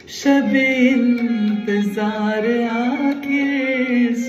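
A woman singing the opening of an Urdu couplet in long, held notes that waver and slide in pitch, beginning about a quarter of a second in.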